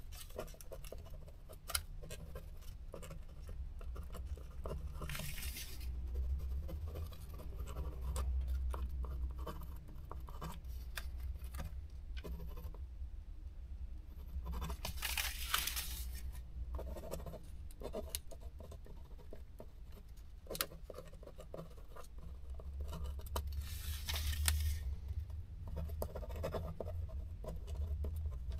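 Ballpoint pen scratching as it writes on a printed tachograph slip, with small taps and paper rustles, and three louder, scratchier stretches about ten seconds apart.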